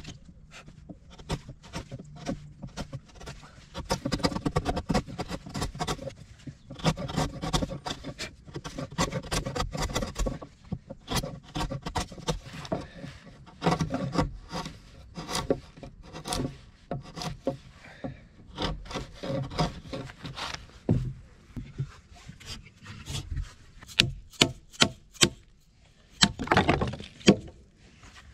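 Hammer and chisel knocking out the waste between saw kerfs in a larch beam to cut a notch: a run of irregular sharp wooden knocks with chips splitting off, a few blows a second, with several louder strikes near the end.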